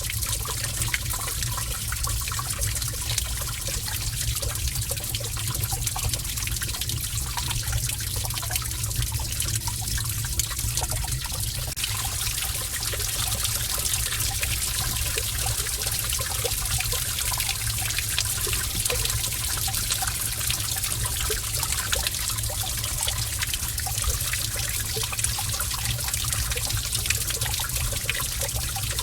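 Gentle running water trickling steadily in a cave, with many small scattered plinks over a constant low rumble.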